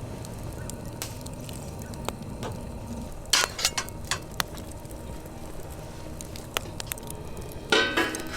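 Camp cooking gear being handled: scattered light clicks and knocks, a cluster of them about halfway through, and a ringing metallic clink near the end.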